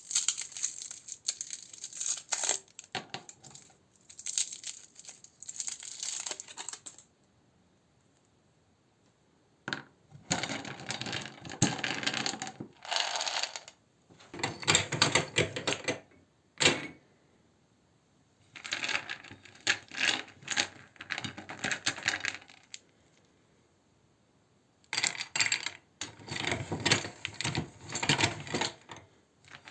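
Hard candy crunching and clattering in a meat grinder, in bursts of dense crackling clicks a few seconds long with short silent pauses between them.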